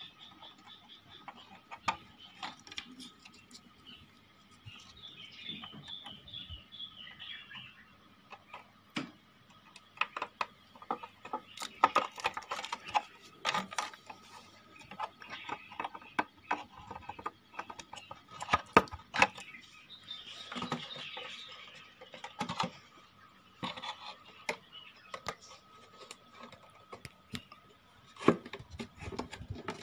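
Irregular clicks and knocks of hands handling an amplifier's circuit boards and plastic connectors, the loudest cluster in the middle, over a faint steady tone.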